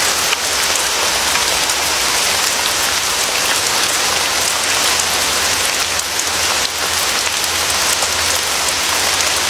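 Steady rain falling, many individual drops ticking over an even hiss.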